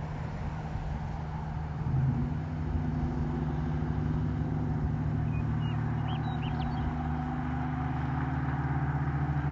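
Jeep Grand Cherokee driving: a steady engine hum with road noise, a little louder from about two seconds in.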